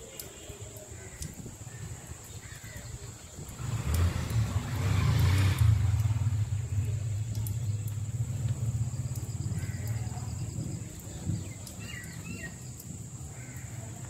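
Low rumble of a passing motor vehicle, building about four seconds in, loudest for a couple of seconds, then slowly fading away.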